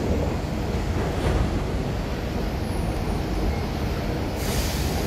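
Metro train pulling into the station behind platform screen doors: a steady low rumble of the moving train, with a short hiss near the end as it comes to a stop.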